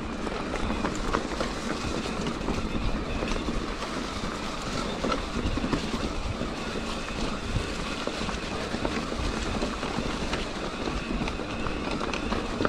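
Mountain bike rolling over rough trail ground, with a steady rumble of tyres and many small irregular rattles and knocks from the bike.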